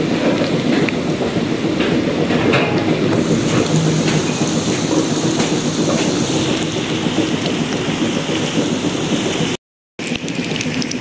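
Samosas deep-frying in hot oil in a pan: a steady sizzle and crackle of bubbling oil, cut off for about half a second near the end.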